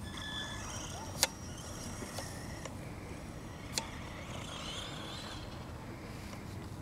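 Brushless electric motor of a 1/16 Traxxas Mini E-Revo RC truck whining briefly as the truck pulls away, over a steady low rumble. Two sharp clicks, about a second in and near the middle.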